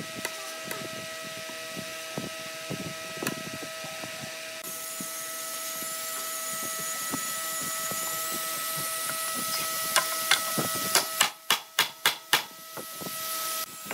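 Hammer striking a wooden block laid on a heavy hardwood board, knocking the board down onto its leg joint: a quick run of about seven sharp knocks near the end. Before that, quieter scattered knocks and handling of the timber over a steady hiss.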